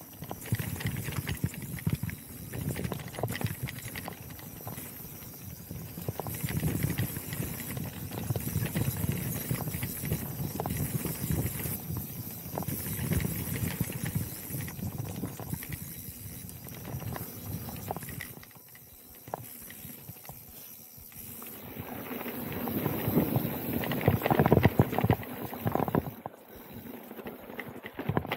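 Electric mountain bike riding fast down a dirt singletrack: tyres rolling over the trail and the bike rattling and clattering over bumps, with a quieter stretch past the middle.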